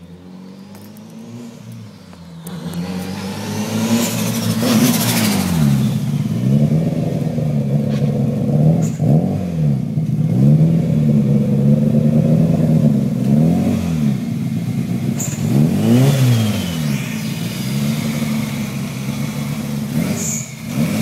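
Toyota Celica ST185's turbocharged four-cylinder engine driven hard close by, its note rising and falling over and over as it revs up and down. A few brief high chirps are heard along the way.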